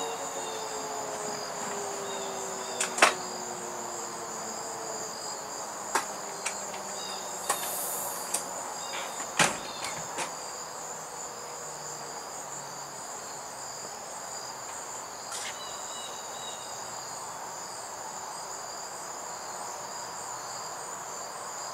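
Outdoor tornado warning siren winding down, its pitch falling and fading away over the first few seconds, over steady chirping of crickets. A handful of sharp clicks sound between about three and ten seconds in.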